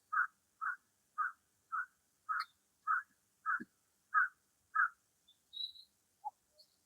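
An animal calling: a run of nine short, evenly spaced calls, about two a second, then a few fainter, higher chirps near the end.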